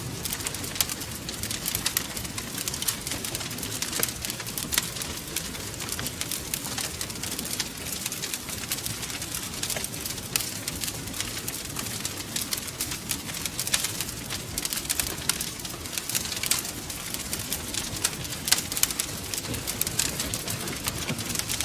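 Wood fire crackling steadily, with many small, irregular sharp pops over a low, continuous rumble of burning.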